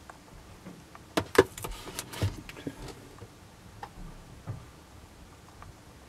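Handling noise: several sharp knocks and a short scrape as an iPad is set down into its cardboard box tray, followed by a couple of fainter taps.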